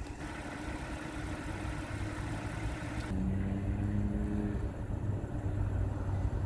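Low, steady motor-vehicle engine rumble, with a hum that changes abruptly about three seconds in.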